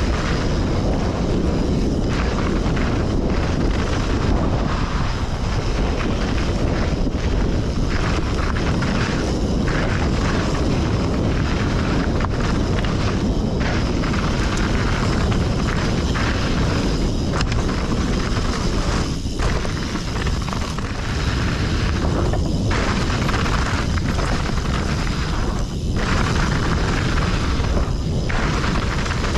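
Mountain bike riding down a rough technical trail: wind buffeting the microphone and tyres rumbling over rocks and roots make a loud, steady rumble.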